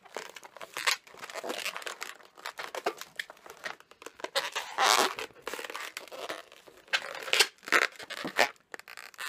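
A 260 latex modelling balloon being twisted and worked between the hands: irregular rubbery rubbing and squeaks, loudest about five seconds in.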